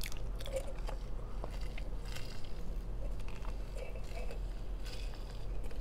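Close-up chewing and biting: small wet clicks and crunches of food being eaten, over a steady low hum.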